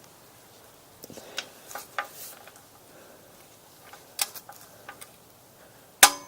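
Light metallic clicks and ticks of a torque wrench and socket working on the oil drain bolt, then a sharp, louder metallic click with a brief ring near the end.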